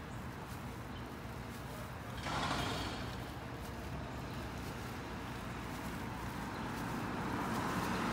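Outdoor street background noise: a steady low rumble, with a sudden louder rush of noise about two seconds in that fades within a second, and the noise building again near the end.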